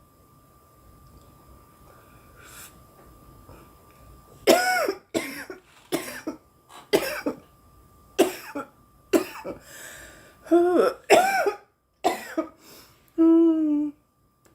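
A woman coughing hard on cannabis smoke: a fit of a dozen or so harsh coughs starting about four seconds in, ending in a short held voiced groan.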